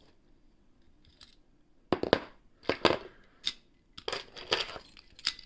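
A string of sharp metallic clicks and clinks, starting about two seconds in, from handling a lever padlock and home-made lock-picking tools.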